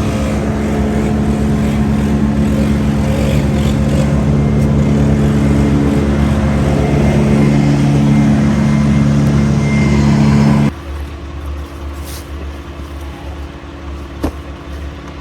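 A heavy engine running steadily at an even pitch. It cuts off abruptly about ten and a half seconds in, leaving a quieter low hum and a single sharp click.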